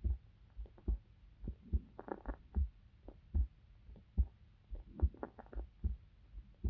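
Human heartbeat heard close up: a steady low thump about every 0.8 seconds, roughly 75 beats a minute, with soft clicks between the beats.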